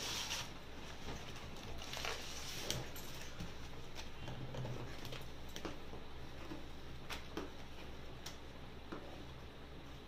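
Sheets of stiff paper being handled, folded and cut with scissors: rustling and crinkling with a few short, sharp snips.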